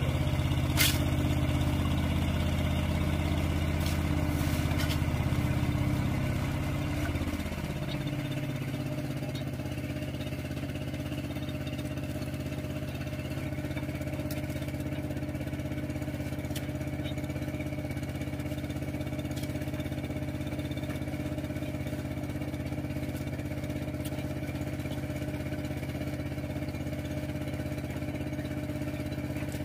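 Boat engine running steadily, easing off about seven seconds in with a falling pitch, then running on at a lower, steady speed. A single sharp knock comes just under a second in.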